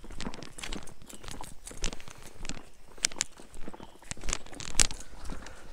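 Footsteps on a dirt path strewn with dry leaves and twigs, a string of irregular crunches and snaps.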